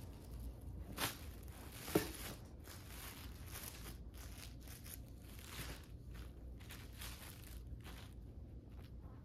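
Rustling and brushing of a chunky knit zip cardigan being handled and smoothed flat on carpet, in short repeated strokes. Two sharper clicks stand out about one and two seconds in, the second the loudest.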